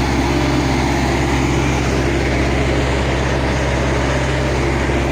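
Road roller's diesel engine running steadily at an even speed.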